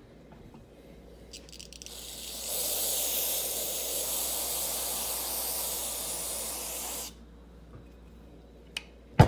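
Aerosol can of carburetor cleaner spraying through its thin extension straw into a carburetor body: a steady hiss of about five seconds that starts about two seconds in and cuts off suddenly. A single sharp knock comes near the end.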